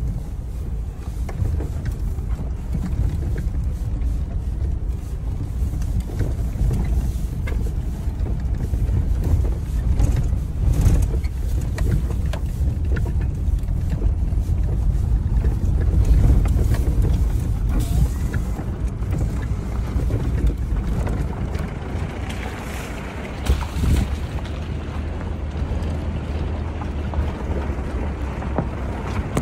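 Vehicle rumbling over a rough, rocky dirt road, heard from inside the cab, with occasional knocks and jolts from the bumpy track.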